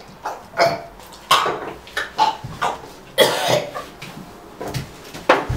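A young man coughing and gasping, choking on peanuts: a string of harsh coughs, the longest and loudest about three seconds in.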